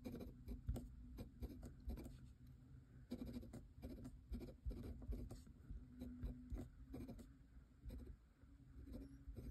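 Kakimori brass dip nib scratching across paper as words are written by hand: a run of faint, short, irregular pen strokes.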